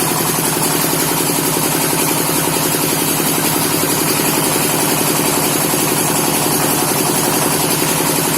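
Electric-motor-driven well-drilling machine running steadily, with a fast, even pulsing and a constant hiss.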